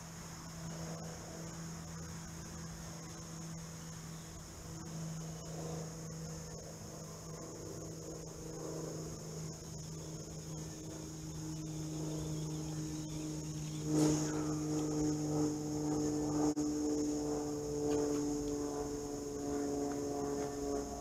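A steady, high insect chorus of crickets over a low hum. About two-thirds of the way in, a sharp click is followed by a steady pitched drone.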